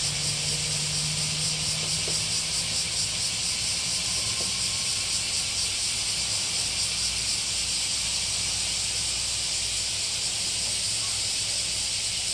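Tenryū Hamanako Railroad TH2100 diesel railcar pulling away, its engine a low drone that eases after the first few seconds as the car moves off. Over it lies a steady high hiss with a fast, even pulse, the loudest sound throughout.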